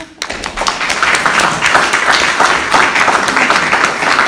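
Audience applauding: a few scattered claps that build within about a second into full, steady applause.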